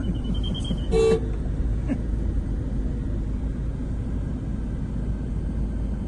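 Steady street traffic rumble with one short vehicle horn toot about a second in.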